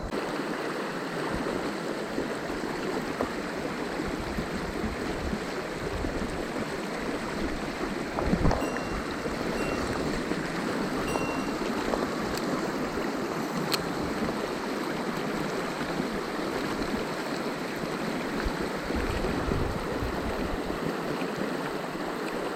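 Mountain stream water rushing steadily over rocks, with a dull knock about eight seconds in.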